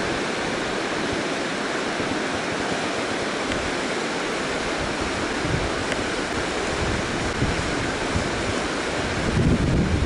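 River water rushing steadily over rapids, with wind buffeting the microphone in gusts that grow stronger near the end.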